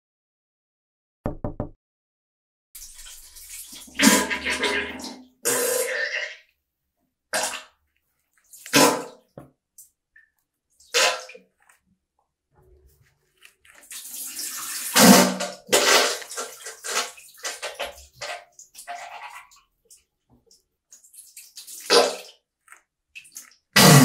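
Diarrhea sound effect: a string of irregular wet, sputtering splatter and fart noises in separate bursts of varying length, with a toilet flush starting right at the end.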